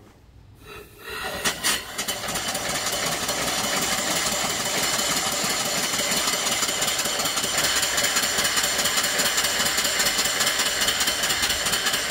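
Live mill steam engine taking steam and starting about a second in, then running steadily with a rapid chuff and steam hiss as it drives a belted alternator.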